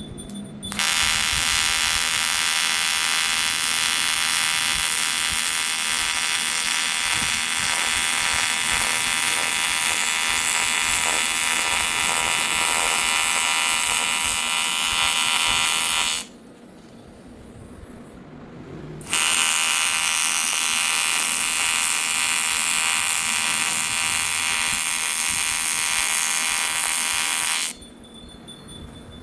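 AC TIG welding arc on aluminum buzzing steadily in two long welds, the first about fifteen seconds and the second about eight, with a short pause between.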